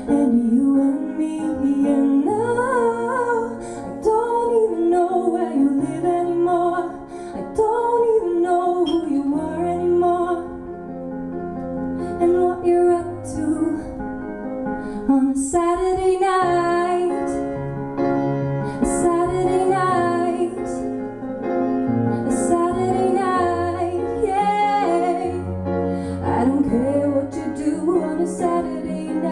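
A woman singing live while accompanying herself on an electric keyboard, with held low chords under the vocal line.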